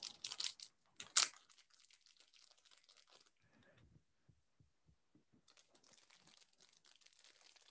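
Small wrapper of a collectible pin crinkling as it is opened by hand: a few light crackles, one sharper crinkle about a second in, then faint scattered rustling near the end.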